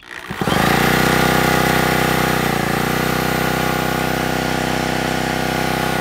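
Cordless drill spinning a Yamaha KT100 100cc two-stroke kart engine over by its crankshaft nut: a steady motor whine that starts a moment in, dips briefly in pitch partway through and holds. The engine turns but never fires, for want of spark.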